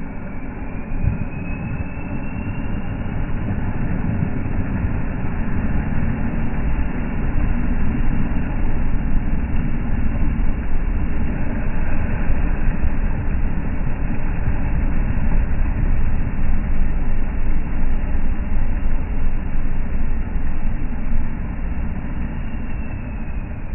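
Ford Ranger 2.2 four-cylinder turbodiesel working under load as the truck crawls through deep mud over rocks: a heavy low rumble that builds over the first several seconds, holds, and eases off near the end.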